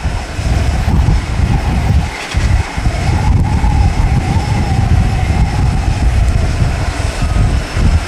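Boeing 747-400D jet engines running as the airliner rolls out after landing, a drone that wavers in pitch. Heavy gusty wind buffets the microphone with a low rumble that rises and falls.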